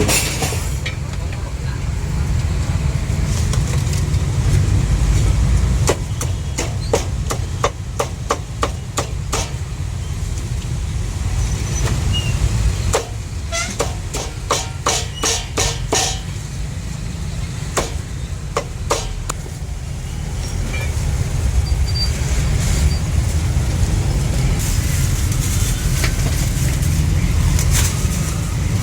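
A cleaver chopping roast meat on a wooden block: sharp, irregular knocks that come in quick runs in the middle stretch, over a steady low rumble of street traffic.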